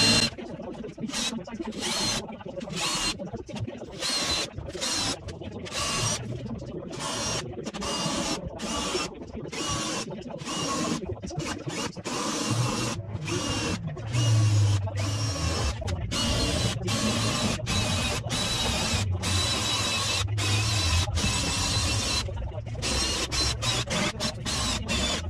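Power drill boring out factory spot welds in truck body sheet metal, in short irregular bursts that start and stop again and again.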